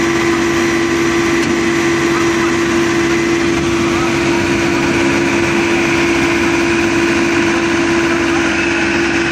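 Engine of a 75 hp crawler tractor running steadily as it pulls a rotary tiller-ridger through the field, a constant drone with one strong unchanging hum.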